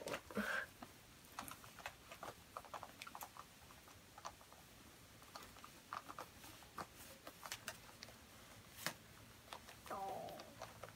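Soft handling noises of doll clothes being pulled onto a doll: fabric rustling with many small, irregular taps and clicks.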